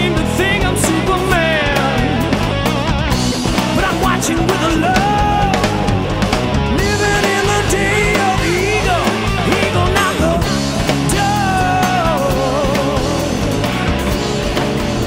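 Rock band playing loud, high-energy rock: a lead electric guitar solo of bending, wavering notes over bass guitar and drums.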